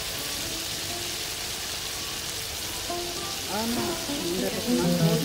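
Desi chicken pieces with tomato and spices sizzling steadily in oil in a karahi. Plucked-string background music comes in about three seconds in and grows louder.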